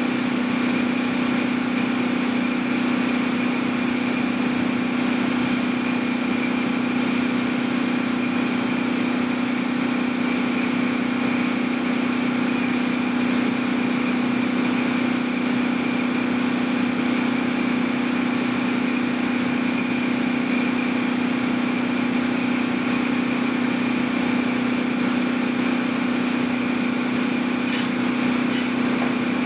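Steady machine drone with a constant low hum and fixed high whines, unchanging throughout; no gunfire.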